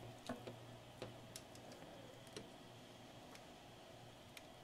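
Near silence while a capacitor lead is soldered to a circuit board: a handful of faint, scattered ticks over a faint low steady hum.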